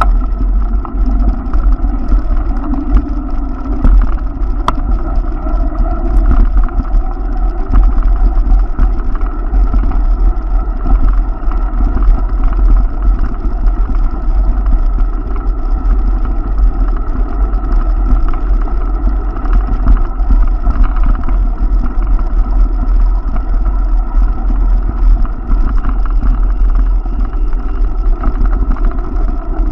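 Steady wind rumble on the microphone of a camera riding along a paved bike path, with rolling noise under it and no break throughout.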